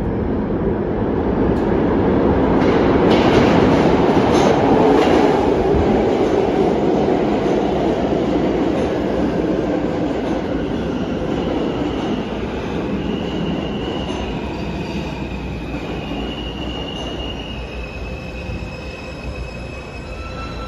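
R160A-1 subway train pulling into an underground station and braking to a stop: a loud rumble of steel wheels on rail with clicks over the rail joints as it comes in, then high whining, squealing tones as it slows.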